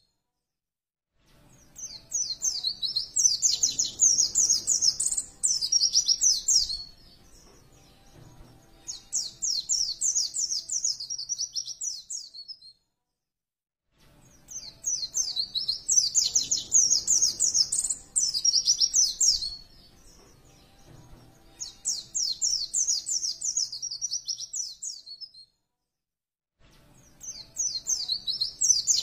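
White-eye (pleci) singing: fast, high twittering phrases a few seconds long, separated by short pauses. The same recorded sequence repeats about every 13 seconds, as in a looped training track.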